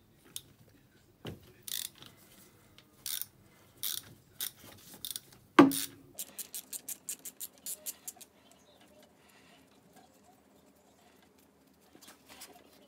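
Ratchet wrench on the spark plug of an air-cooled 250 cc ATV engine, clicking in short strokes as the plug is unscrewed. About halfway there is one sharp metal clank, followed by a quick, even run of clicks lasting about two seconds.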